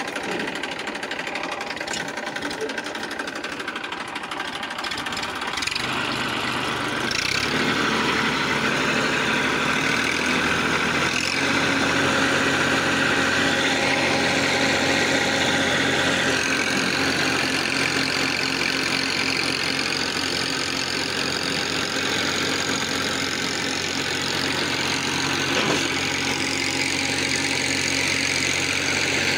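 Massey Ferguson 1035 DI tractor's three-cylinder diesel engine, running slowly at first, then revved up about six seconds in and held at a steady high speed under load, hauling a heavily loaded trolley out of mud.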